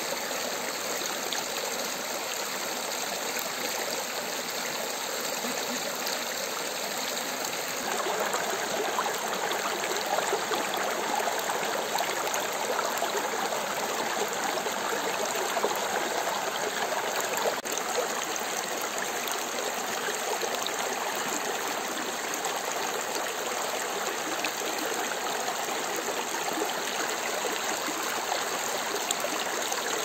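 Water of a stream flowing steadily, a continuous rushing and trickling that grows a little louder about eight seconds in.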